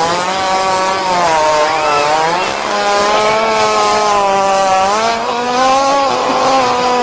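One long, drawn-out buzzing fart at a fairly steady pitch, wavering slightly up and down without a break.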